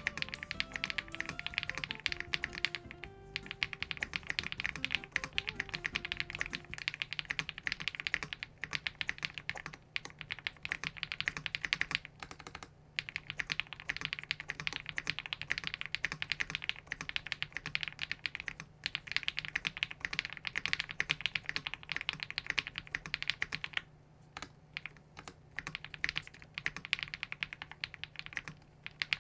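Fast, continuous typing on a Zoom TKL mechanical keyboard fitted with lubed KTT Kang White linear switches and Keychron keycaps, a dense run of keystrokes with a deep, marbly sound. The typing breaks off briefly about thirteen seconds in and thins out for a moment near twenty-four seconds.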